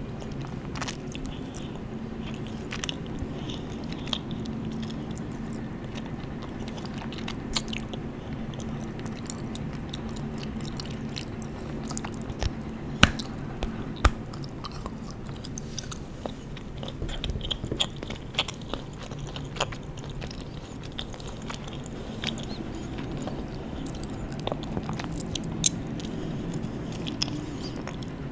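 Close-up mouth sounds of chocolate being bitten and chewed, with many small clicks and two sharp snaps about halfway through as pieces break off. A steady low hum runs underneath.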